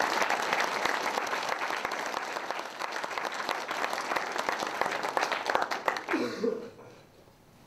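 Audience applauding, many hands clapping together, dying away about six seconds in. A brief voice is heard as it ends.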